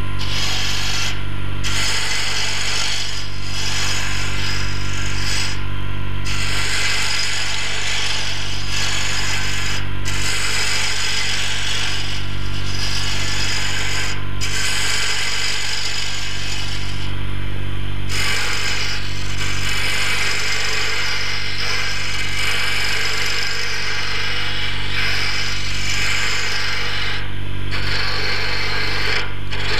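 JET wood lathe running with a steady motor hum while a carbide woodturning tool cuts a spinning wooden bottle-stopper blank, giving a continuous hissing rasp of shavings. The cutting noise breaks off for a moment several times as the tool is lifted from the wood, while the hum carries on.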